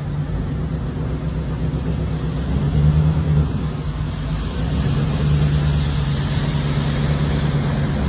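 A motor vehicle's engine running: a steady low hum under a wash of noise, briefly louder about three seconds in.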